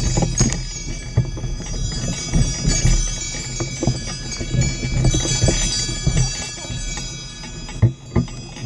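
Bells on a Shetland pony's harness jingling steadily as it walks pulling a sleigh through snow, with soft irregular thuds of its steps and a sharper knock near the end.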